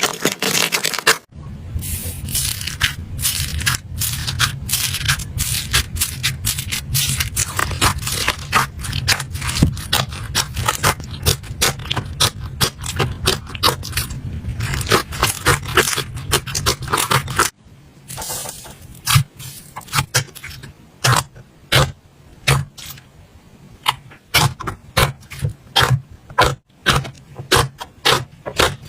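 Hands squishing and poking slime: a dense run of crackling clicks and sticky pops. It changes abruptly about a second in and again a little past halfway, after which the pops come more spaced out.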